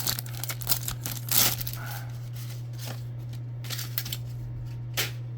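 Crinkling and tearing of a trading-card pack wrapper and cards being handled, with a quick flurry of rustles in the first second and a half, then a few sparse clicks. A steady low electrical hum runs underneath.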